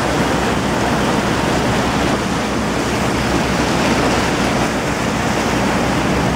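Tour boat under way: a steady rush of churning propeller wash and water along the hull over the low, even hum of the boat's engines.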